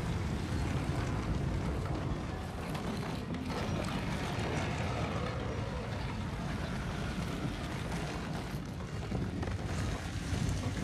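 Heavy stone rolling and grinding against rock as a tomb is opened: a deep, steady rumble that runs throughout, as a film sound effect.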